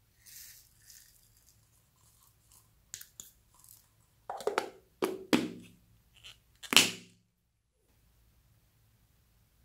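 Hollow plastic capsule halves knocked a few times while small foam beads are shaken out of them, with a light rustle and a few small clicks first. The loudest knock comes near the end of the activity.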